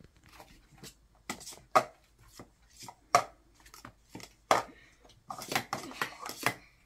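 Blue plastic Speed Stacks sport-stacking cups clacking against each other and the mat as they are stacked up and brought down. The knocks come irregularly at first and closer together near the end.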